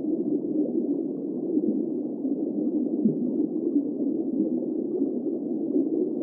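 Whale sounds recorded underwater: a steady, muffled, low rumbling that stays in a narrow band, without clearly pitched calls.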